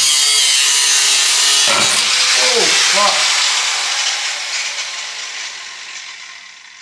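Angle grinder cutting into car body sheet metal, trimming off a sharp edge: a harsh, hissy grinding that fades away over the last few seconds.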